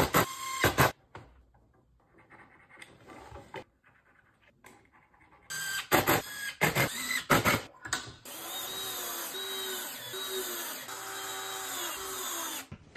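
Cordless drill/driver driving screws into a melamine board to fix metal brackets: short runs of clicks and knocks near the start and again around the middle, then the drill motor runs steadily for about four seconds near the end.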